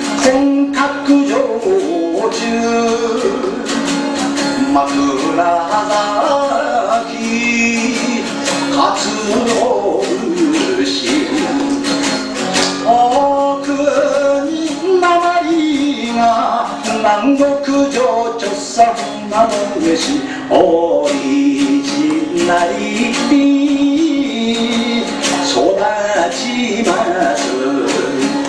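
A song performed live: a man's singing voice over guitar accompaniment, with a steady sustained low note beneath the melody.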